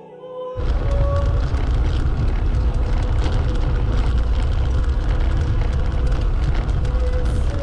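Wind buffeting a camera microphone while cycling: a loud, steady low rumble that comes in suddenly about half a second in, after a brief quieter moment.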